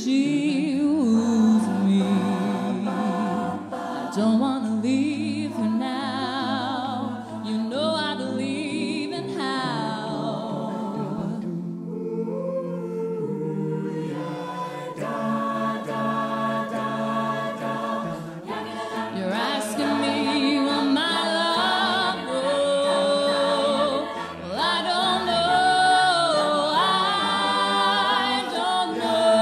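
Mixed-voice a cappella group singing: a female lead voice with vibrato over close backing harmonies and a sung bass line. The texture thins to a few quieter voices about twelve seconds in, then the full group comes back in.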